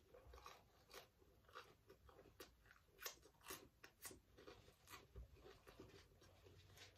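Faint chewing of Jet's Detroit-style pepperoni pizza close to the microphone: soft crunches from the crust and small wet mouth clicks, a few a second.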